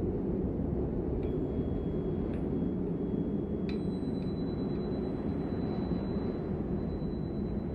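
A steady low droning rumble with faint, high bell-like chimes over it. Soft strikes come about a second in and again near two and a half seconds. A third strike near four seconds rings on as a thin high tone.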